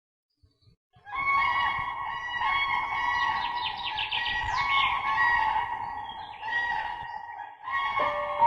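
A flock of birds calling in many overlapping, repeated cries, starting about a second in. Music with held notes comes in near the end.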